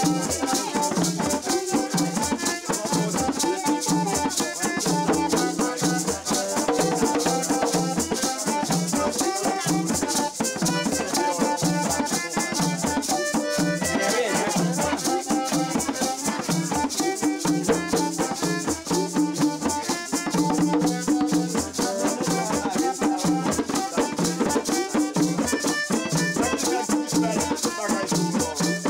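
Folk dance music from a small Haitian ensemble: an accordion melody over hand drums, with a hand shaker keeping a steady rattling beat.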